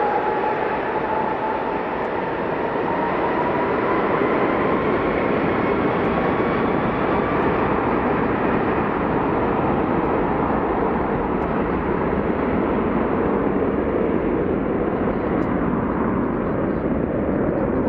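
Airbus A330-300 turbofan engines spooling up, a loud steady rush of jet noise with a whine that climbs in pitch over the first eight seconds or so, as thrust is set for the takeoff roll.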